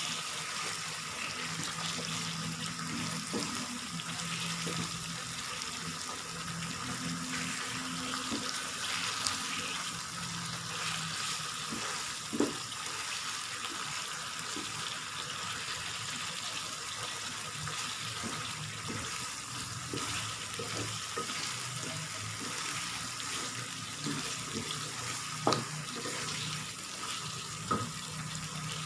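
Fish pieces sautéing in curry paste in a pan: a steady sizzle, with a few sharp knocks about halfway through and near the end.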